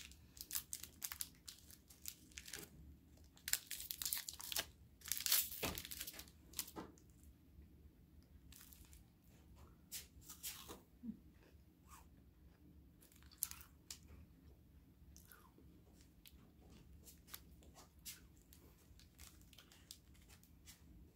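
A chocolate bar's plastic wrapper crinkling and being torn open, busiest and loudest in the first several seconds, then occasional single crackles of the wrapper as it is handled.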